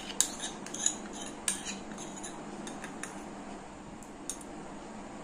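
A metal spoon clinking lightly against a bowl several times in the first three seconds, with one more tap a little after four seconds.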